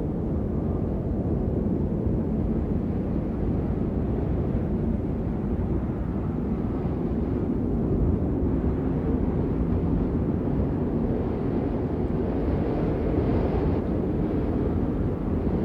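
Steady rain, an even, unbroken rush with most of its weight low and dull rather than hissy.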